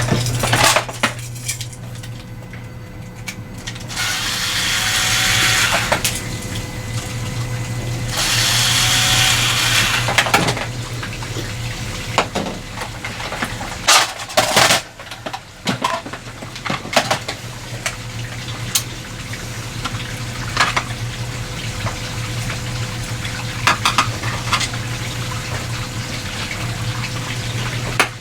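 Hard plastic parts being handled: scattered clicks, knocks and clatter, with two longer rushing, scraping stretches a few seconds in, over a steady low hum.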